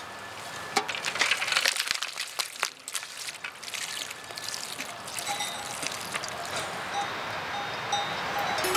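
Ice water trickling and sloshing in galvanised metal buckets around bare feet, with a few sharp knocks between about one and three seconds in, then a steadier trickle.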